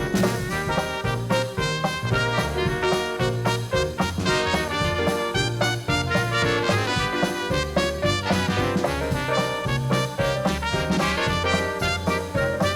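Background music: an upbeat swing tune with trumpet and trombone over a walking bass and a steady beat.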